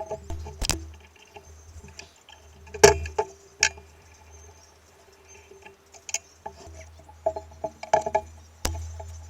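Metal parts and tools of a pillar drill head clinking and knocking as it is taken apart: irregular taps with short metallic ringing, the loudest knock about three seconds in, over a low steady hum.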